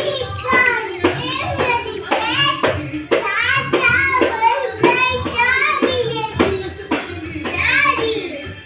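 A small child singing a song in a high voice while beating a hand-held tambourine with the palm, about two strikes a second, each strike a sharp slap with jingle rattle.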